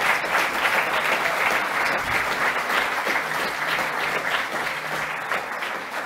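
Audience applauding at the close of a talk, the clapping dying down near the end.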